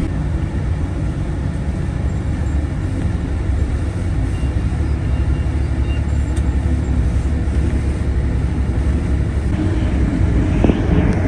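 Moving tour bus heard from inside the cabin: a steady, low rumble of engine and road noise.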